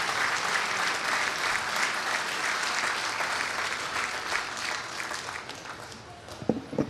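A large crowd applauding, fading out near the end, with a couple of brief knocks as it dies away.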